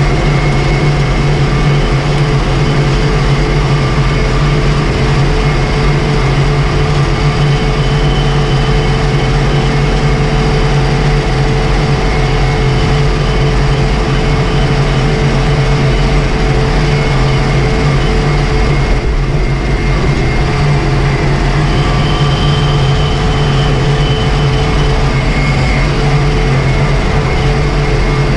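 Ursus 1224 tractor's six-cylinder diesel engine running steadily on the road at constant speed, heard from inside the cab, with a thin high whine above the engine note.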